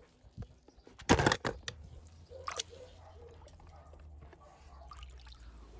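A small toy car dropping into water: a short splash a little over a second in, then a few faint drips and sloshes.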